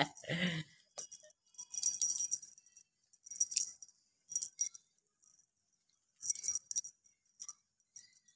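Small bells jingling in short bursts, about six times, as kittens tussle and bat at a wand toy; a brief lower, louder sound comes right at the start.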